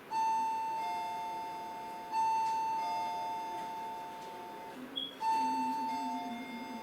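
A two-note chime sounding three times, about every two to three seconds: a higher ringing note, then a lower one under a second later, each ringing on and fading.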